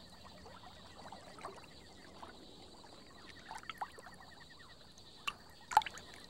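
Small water drips and light splashes at the surface, scattered and faint, with two sharper splashes near the end: an archer fish's shot of water and the drops falling back.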